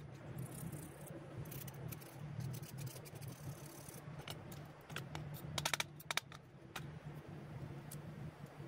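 Scattered light clicks and small metallic rattles of workshop parts and tools being handled, several in quick succession a little past halfway, over a low steady hum.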